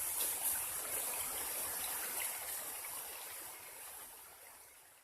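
River water flowing and rushing with a steady hiss, fading out over the last couple of seconds.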